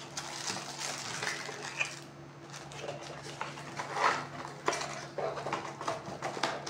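Handling noise as the accessories and packaging are moved on a table: scattered light clicks and knocks of small plastic parts with paper rustling, the sharpest click about four seconds in, over a low steady hum.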